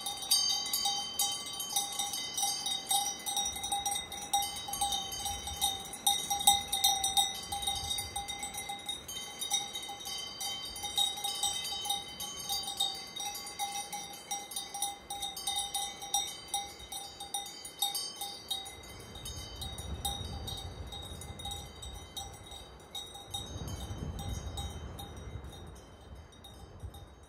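Metal bells clanking and ringing irregularly, with several steady ringing pitches. They grow fainter in the last part, where a low rumble comes in.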